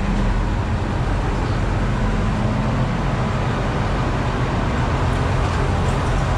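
Bizon Rekord combine harvester running with its diesel engine and threshing gear engaged: a steady engine hum under a dense, even mechanical rattle. The sieves are running quietly on newly replaced hangers.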